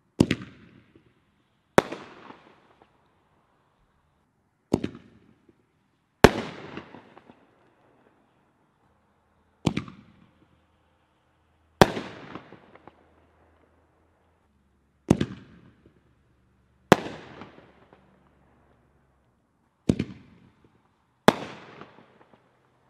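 Black Cat Color Bombs aerial firework shells firing five times in a row. Each shot is a sharp launch bang followed about one and a half to two seconds later by the bang of the shell bursting overhead, and each bang trails off in a brief fading rumble.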